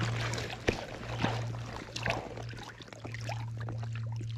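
Water splashing and dripping close by, as a freshly netted rainbow trout is handled in the landing net, with scattered small knocks and one sharp click about a second in. A steady low hum runs underneath.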